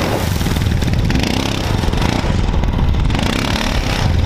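Honda Rancher ATV engine revving hard as its tyres spin on loose gravel, spraying grit, then running on at speed as it pulls away.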